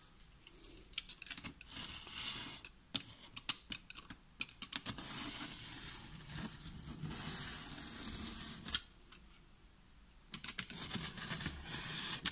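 Snap-off utility knife blade cutting through packing tape along the seam of a cardboard box. It starts with a run of sharp clicks and scratches, then one long steady slice from about five seconds to nearly nine, a pause, and more scratching and clicks near the end.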